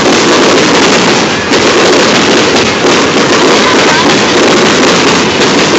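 Aerial fireworks going off in a near-continuous barrage of bangs and crackle, very loud throughout.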